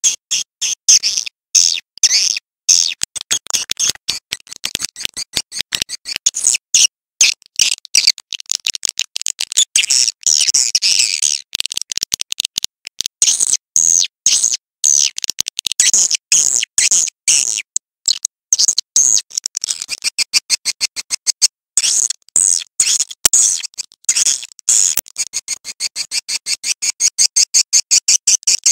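Swiftlet lure track: dense, rapid trains of short, high twittering chirps broken by brief gaps, settling near the end into an even pulse of about four calls a second.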